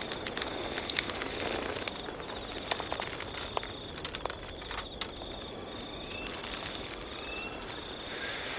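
Outdoor night ambience: a steady, high, pulsing insect chirring, probably crickets, with scattered light clicks and crackles and a few short chirps in the second half.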